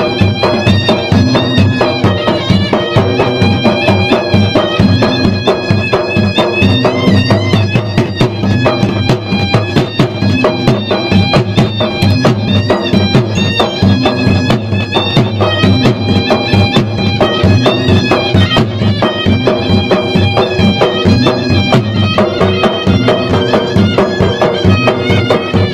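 Traditional Maros gendang drums played in rapid, dense strokes, with a pitched wind instrument carrying a continuous melody over them.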